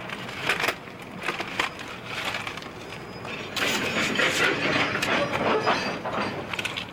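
Clicks and rustling as paper waybill cards are handled and slid into the small metal card holder on a steel boxcar's side. The rustle and clatter get louder and busier from about halfway in.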